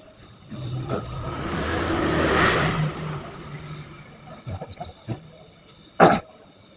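A motor vehicle passing, its engine and road noise swelling for about two seconds and then fading away. A single sharp knock near the end.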